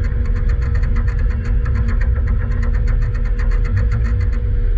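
Demolition derby car's engine running steadily, heard from inside the car: a deep, loud low rumble with a fast, even ticking over it.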